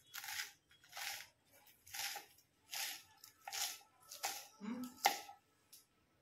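Small kitchen knife slicing through a stack of fresh spinach leaves on a wooden chopping board: a crisp crunching cut a little more than once a second, seven strokes in all.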